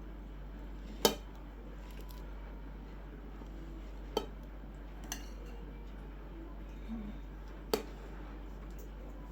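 Dishes and cutlery clinking: four short, sharp clinks a few seconds apart, the first, about a second in, the loudest.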